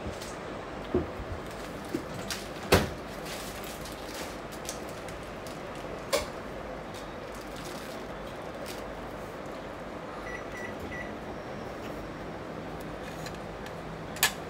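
Microwave oven giving three short, even beeps about ten seconds in, the signal that its timed run is over. Scattered knocks and clicks of handling come before and after, the loudest about three seconds in and another near the end.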